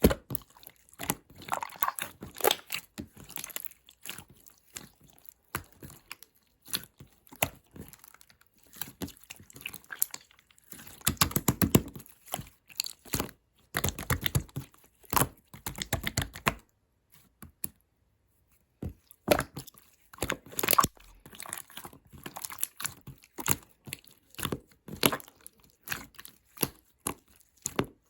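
Keyboard typing in fast bursts of soft clicks and taps, with short pauses between runs and a longer pause a little past halfway.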